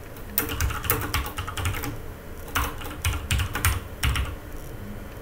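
Typing on a computer keyboard: bursts of quick keystrokes with a pause of about a second in the middle and a few more keys near the end.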